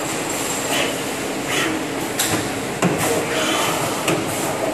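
Knee-type CNC milling machine running, its cutter working an aluminium block and then the spindle head rising clear of the part. There is a steady machine noise throughout, with a few sharp clicks and a clunk; the loudest comes about three seconds in.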